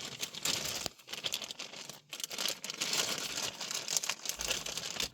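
Plastic rustling and crinkling as car-stereo wiring looms and plug connectors are handled, with a few small clicks.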